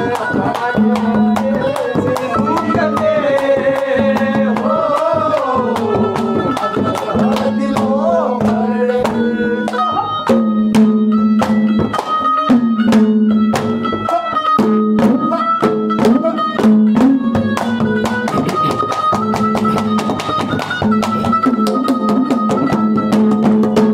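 Instrumental interlude of a Haryanvi ragni folk song: a steady low drone under a melody line that glides in the first half and moves in held steps in the second, with fast, continuous hand-drum strokes.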